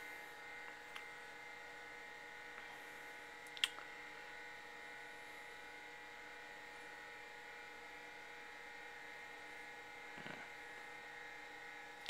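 IBM PS/2 Model 80 running: a steady machine hum with several even tones, and one sharp click about three and a half seconds in.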